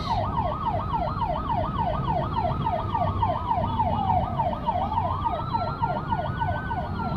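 Two emergency-vehicle sirens sounding together: a fast yelp sweeping up and down about four times a second, and a slower wail that falls, climbs again and starts falling near the end. Heard from inside a following car, over the low rumble of its engine and road noise.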